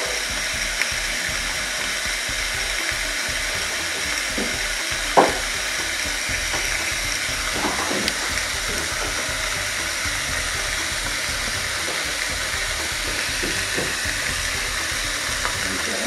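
Beef steak sizzling steadily as it sears between the hot plates of a closed Chefman panini grill press, cooked without oil. A single sharp click sounds about five seconds in.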